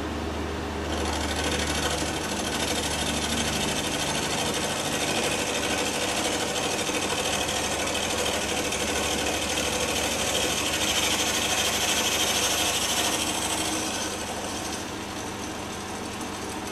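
Milling machine end mill cutting cast iron as the table feeds, a steady high-pitched cutting noise over the spindle's hum. The cut starts about a second in and eases off near the end.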